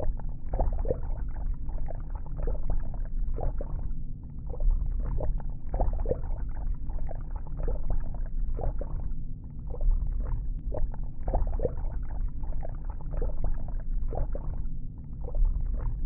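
A steady deep rumble with irregular short bubbling, gurgling sounds over it, several a second, like underwater ambience.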